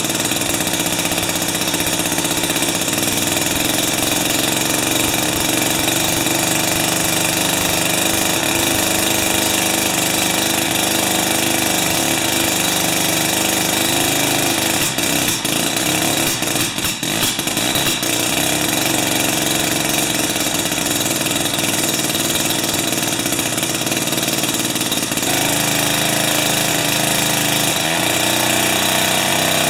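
Tecumseh 3 hp two-stroke engine of a Jiffy 30 ice auger running. There is a brief dip about halfway through, and its note changes near the end.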